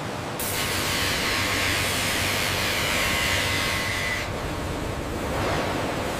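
Handheld power polisher running on a stainless steel panel: a steady hiss with a faint high whine that starts about half a second in and stops about four seconds in, over a low steady factory hum.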